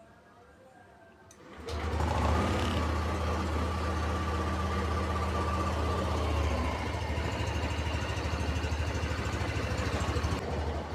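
Yamaha NMAX scooter's single-cylinder engine starting up a little under two seconds in and then idling steadily with a low, even hum.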